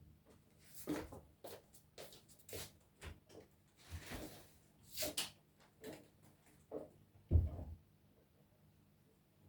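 Household handling noises: light clicks, knocks and rustles at irregular intervals, with a heavier thump about seven seconds in, then quiet.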